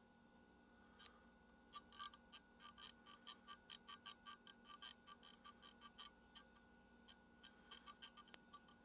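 Rapid, irregular run of small sharp metallic clicks as a tool works at a corroded part of a 1978 Quadrajet carburetor. The clicks come fastest in the middle, about four or five a second, and thin out near the end.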